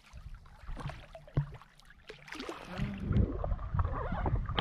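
Shallow seawater lapping and gurgling around a camera held at the water's surface, with small clicks and splashes. About three seconds in it gives way to louder, steadier rumbling wind and water noise beside an inflatable dinghy.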